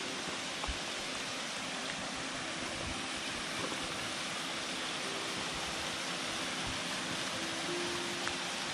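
Small woodland waterfall: water falling and rushing with a steady, even sound.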